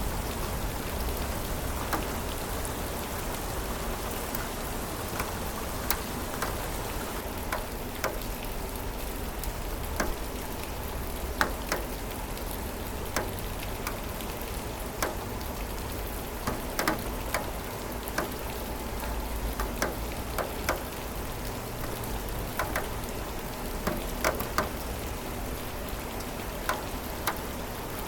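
Steady rain falling, with scattered louder drops ticking sharply at irregular moments over the even hiss.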